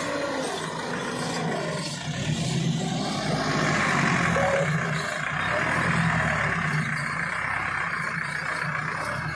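Massey Ferguson 385 front-loader tractor's diesel engine running under load, the revs rising about two seconds in and holding as the loader lifts a full bucket, then easing near the end.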